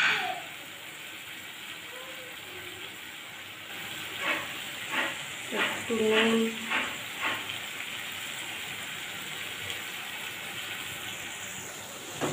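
Ginger, cumin and chilli paste with tomato sizzling steadily in oil in a metal wok, being fried down until the oil separates. A metal spatula scrapes and stirs it in a handful of short strokes between about four and seven and a half seconds in.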